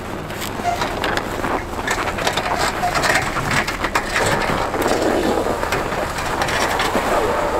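Snow crunching under boots and tyres, with scattered knocks and clatter, as a motorcycle is wheeled down metal loading ramps off a pickup onto snow.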